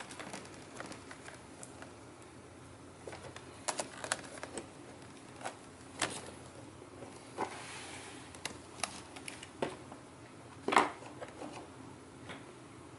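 Scattered clicks and light knocks of a disassembled HP 15 laptop's plastic casing and hinges being handled, with one louder knock near the end.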